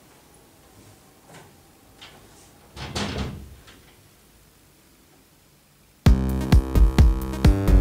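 A door shutting about three seconds in, against the quiet of the room. About six seconds in, a loud electronic music sting with a hard beat starts abruptly.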